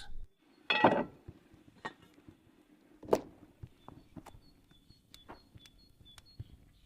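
Scattered knocks and clicks, the loudest about three seconds in, with faint high chirps repeating in the background.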